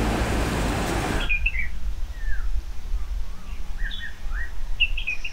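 Dense city street noise cuts off abruptly about a second in, giving way to birds chirping: short, separate high calls over a steady low rumble.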